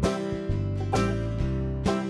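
Background music with strummed acoustic guitar chords about once a second over steady bass notes.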